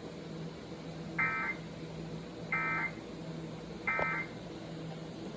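Emergency Alert System end-of-message code: three short bursts of warbling digital data tones, about a second and a half apart, over a steady low hum.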